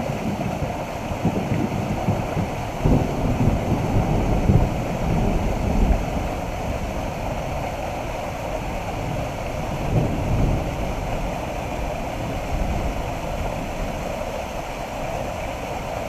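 Small waterfall pouring through a gap in a rock ledge into a creek pool, a steady rushing and splashing of water. Wind buffets the microphone in gusts, most strongly about three to four seconds in and again around ten seconds.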